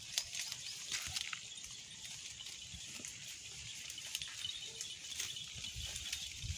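Sheep grazing: an irregular run of short, crisp tearing and crunching sounds as grass is bitten off and chewed.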